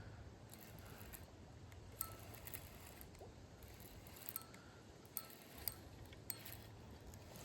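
Near quiet, with a few faint, irregular clicks and light clinks.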